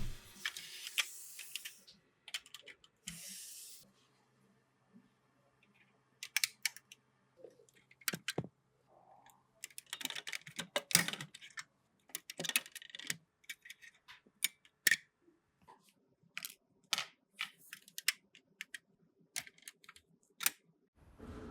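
Irregular light clicks and taps of small model car parts being handled and worked on, coming in uneven clusters with short pauses. There is a brief hiss about three seconds in.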